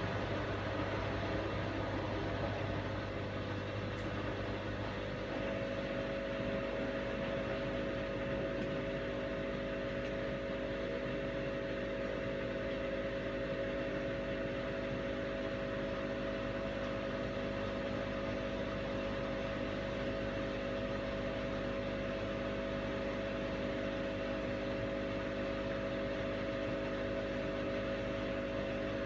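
Washing machine running with a steady motor hum and whir. About five seconds in the low hum drops away and a steadier, higher-pitched hum takes over and holds.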